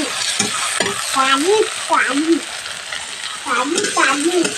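Metal spatula stirring onions and spring-onion greens frying in oil in a metal kadhai, scraping the pan in several short squeaky strokes over a steady sizzle.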